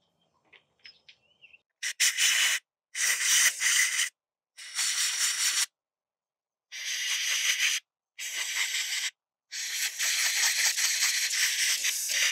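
Compressed-air blow gun blasting out the emptied valve chambers of a brass triplex pressure-washer pump manifold, clearing debris. It comes as six separate hissing bursts, the last about three seconds long.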